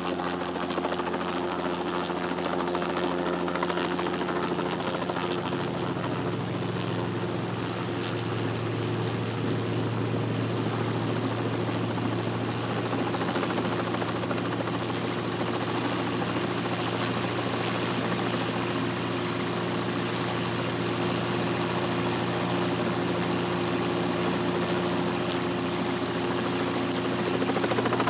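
Single-engine propeller plane's engine droning steadily in flight.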